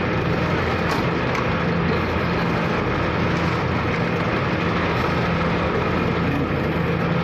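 Steady drone of a car ferry's engine, a low hum running under a constant rushing noise of wind and waves.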